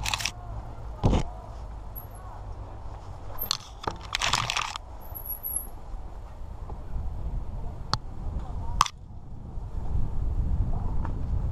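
Mountain bike riding over a rough trail: sharp clatters and knocks from the bike over a steady low rumble, bunched in the first five seconds and twice more around eight seconds in.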